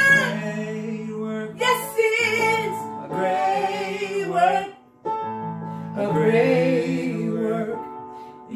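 Gospel singing: a woman's voice with vibrato in drawn-out phrases over sustained chords on an electronic keyboard, with a brief break about five seconds in.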